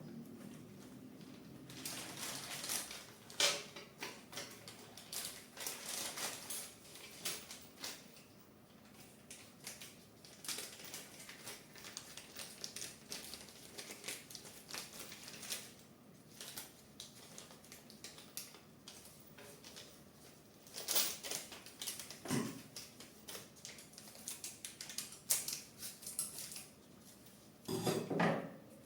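Hands working on a 3D printer's parts during assembly: irregular clicks, taps and rustling of small hard plastic and metal pieces being handled and fitted, with a few louder knocks near the end.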